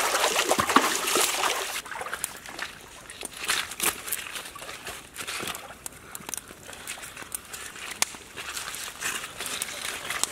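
Shallow creek water splashing and sloshing, loudest for the first two seconds, then fainter trickling with scattered small clicks and knocks.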